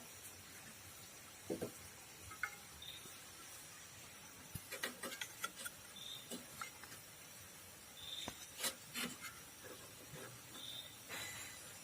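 Faint rubbing and scattered small clicks of spark plug wire boots being handled and pushed onto the spark plugs of a Maruti 800's three-cylinder engine.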